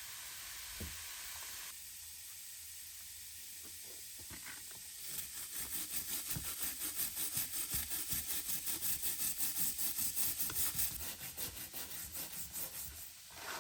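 A brush scrubbing the rusty iron axe head in quick rhythmic back-and-forth strokes, about three a second, starting about five seconds in and slowing near the end.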